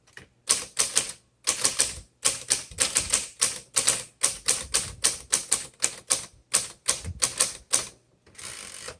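Manual typewriter being typed on: a quick run of sharp key strikes, about four or five a second, stopping near the end, followed by a short rasping sound.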